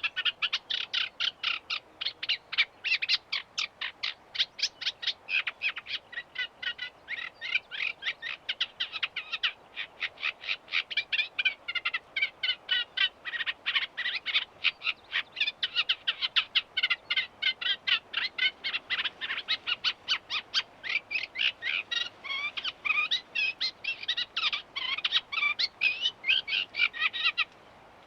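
Eurasian reed warbler singing: a long, unbroken run of rapid repeated notes, several a second, that stops abruptly near the end.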